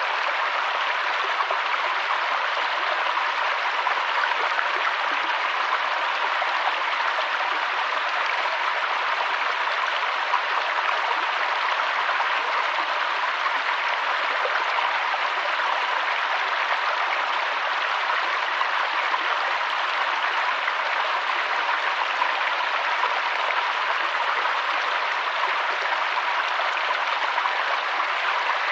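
Waterfall rushing steadily: an unbroken, even hiss of falling water with no deep rumble.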